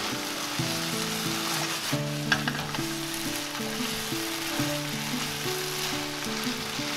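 Octopus and vegetables sizzling in a frying pan as they are stirred and tossed, with a sharp tap a little over two seconds in. Background music plays a simple stepped melody underneath.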